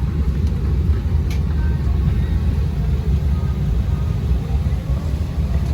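Steady low rumble inside the cabin of an Embraer 175 regional jet parked at the gate during boarding, with faint passenger chatter and a light click about a second in.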